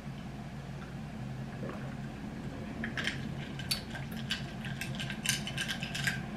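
Straw stirring a matcha drink in a glass, making light irregular clinks and taps against the glass from about halfway through, over a steady low hum.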